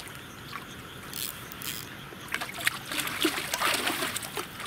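Splashing and gurgling at the water's surface as a catfish strikes at a lure worked on the surface, in several short bursts that are loudest from about three and a half to four seconds in.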